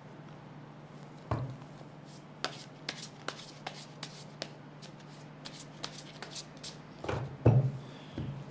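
A deck of tarot cards being shuffled by hand: a run of quick, light card clicks, with a few soft thumps, the loudest near the end.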